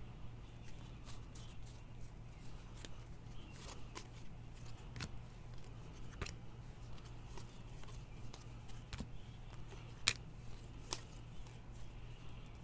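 A stack of trading cards being flipped through by hand: card stock sliding and clicking against card in short irregular strokes, with one sharper snap about ten seconds in. A low steady hum runs underneath.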